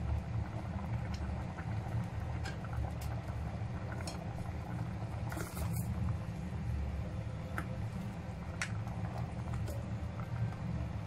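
Coconut milk with squash bubbling at a simmer in a steel pot, with scattered small pops and ticks, and a plastic ladle stirring through it in the second half, with a short scrape about halfway. A steady low hum runs underneath.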